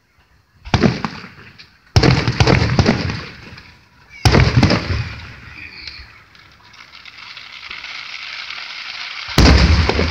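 Aerial firework shells bursting overhead: four loud booms, about a second in, at two seconds, just past four seconds and near the end, each followed by a fading tail of noise.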